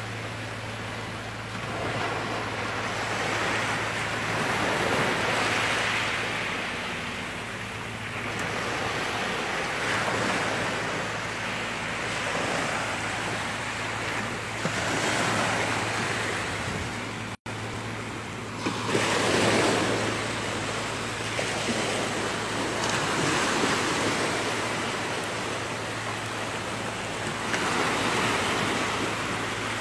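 Small, closely spaced Gulf of Mexico waves breaking and washing up the sand at the water's edge, the surf swelling and fading every few seconds. A steady low hum runs underneath, and the sound cuts out for an instant about 17 seconds in.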